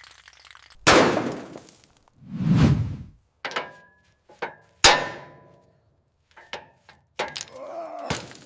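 A series of separate metallic clanks and knocks, each ringing out briefly. The loudest come about a second in and near the middle, with a short lower rumbling scrape between them.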